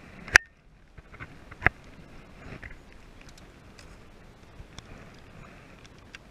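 A sharp knock about a third of a second in and another about a second and a half later, with scattered light clicks and taps: handling noise as a fish is held up in a plastic fishing kayak.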